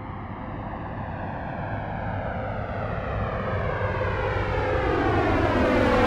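Airplane approaching, with its engine growing steadily louder. A steady engine tone runs under a hiss whose bands sweep down in pitch as it nears.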